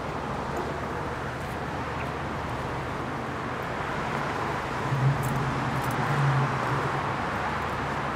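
Cars passing along a street one after another: a steady wash of tyre and engine noise that swells a little about five seconds in, when a low hum joins it.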